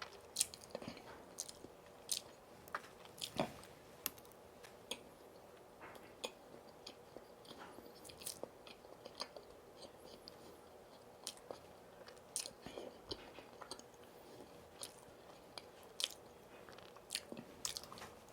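Close-miked chewing and biting of donuts, with many short, irregular wet mouth clicks scattered throughout.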